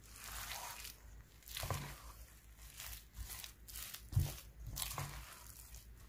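Kitchen prep sounds: light rustling and crinkling with scattered knocks and clacks of utensils, the sharpest knock a little past the middle.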